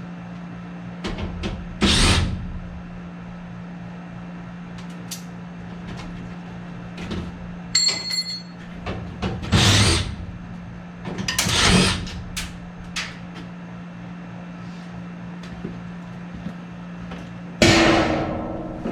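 Hand-tool work on furnace ductwork and fittings: scattered knocks, clanks and scrapes, with a short metallic ping about eight seconds in, over a steady low hum.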